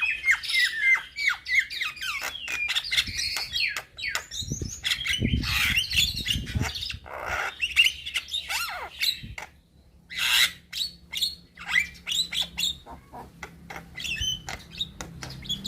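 A young Javan myna singing a fast, varied chattering song of whistles, harsh squawks and clicks, with a brief pause about ten seconds in.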